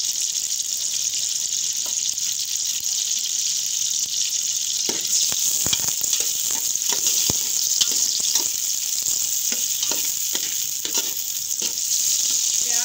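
Sliced onions sizzling steadily in hot oil in a metal pot. From about five seconds in, a ladle scrapes and taps against the pot as the onions are stirred.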